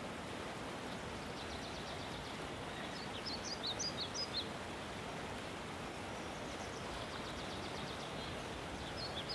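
Outdoor ambience: a steady background hiss with birds chirping over it. A quick run of short, high calls comes about three seconds in, and another starts near the end.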